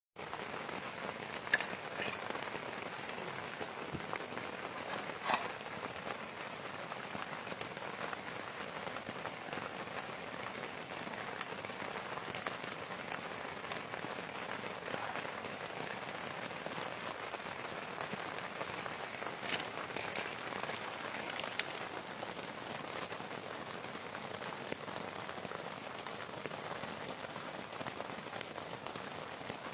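Steady rain falling on a surface, a constant hiss, with a few sharper single taps standing out now and then.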